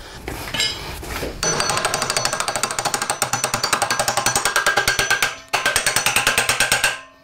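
Hand ratchet clicking rapidly and evenly, about ten clicks a second, with a faint metallic ring, as it draws the pulley onto the electric motor's shaft. There is a short break just after five seconds, then the clicking resumes and stops near the end.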